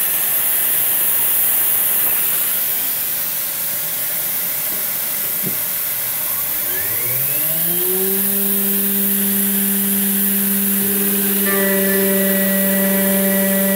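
Steady hiss of a mist-coolant air nozzle. About six seconds in, the VFD-driven mill spindle spins up in a rising whine and settles into a steady hum at 12,000 RPM. Near the end a 1/4-inch carbide end mill enters the aluminium block and a higher whine joins as it cuts under load.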